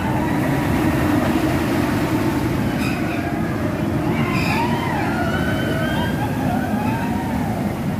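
Roller coaster train rumbling along its steel track. A steady, loud rumble runs throughout, with high, wavering squeals rising and falling over it.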